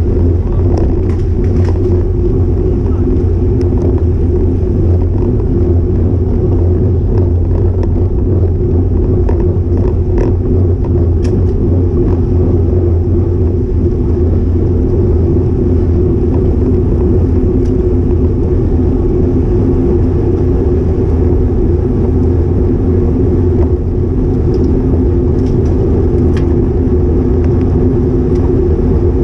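Steady loud wind and road rumble on the microphone of an action camera riding on a road bike at speed, with a few faint ticks.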